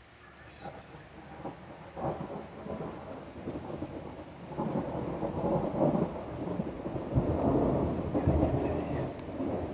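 A thunderclap rolls and rumbles with crackles. It builds from about a second in, is loudest in the second half, and eases a little near the end.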